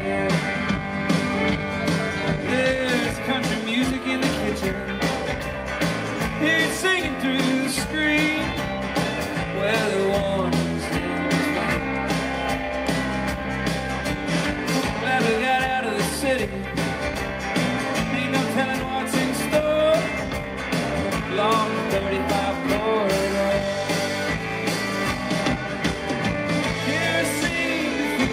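Live country band playing a song at steady volume, with a man singing over guitars and a steady beat.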